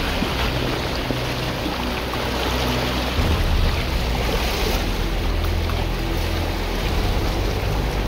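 Shallow surf washing in over a sandy beach, a steady rush of foaming water, with wind buffeting the microphone as a low rumble.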